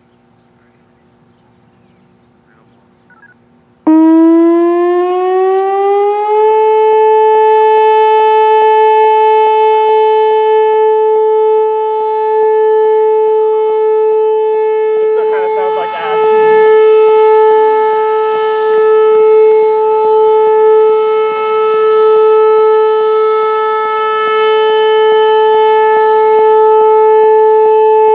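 Whelen Vortex R4 electronic outdoor warning siren starting its Alert signal. About four seconds in it comes on suddenly and glides up over a couple of seconds to a loud, steady tone, which it holds, swelling and fading slightly.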